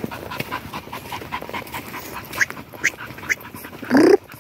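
Dog panting in a quick, even rhythm, with a short, loud rising yelp near the end.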